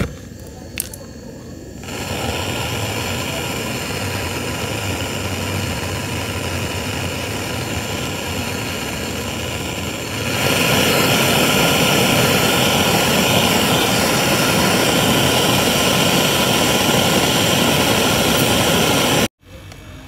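Gas brazing torch lit with a lighter's click, then burning with a steady rushing hiss on a copper pipe joint at a refrigerator compressor. The hiss turns louder about ten seconds in as the flame burns blue, then cuts off abruptly just before the end.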